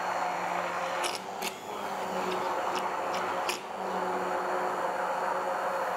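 Bamix stick blender running steadily with its blade head submerged in liquid glaze in a glass bowl, emulsifying it. A few sharp clicks sound over the motor in the first few seconds.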